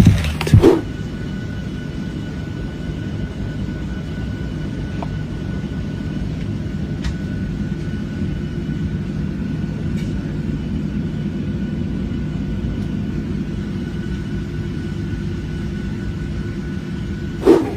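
Steady low rumble of aircraft engine noise with a faint steady high whine. A few sharp loud sounds come in the first second.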